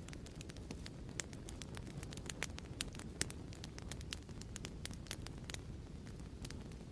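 Crackling wood fire in a fireplace: a steady low rumble of flames with irregular sharp pops and crackles, several a second.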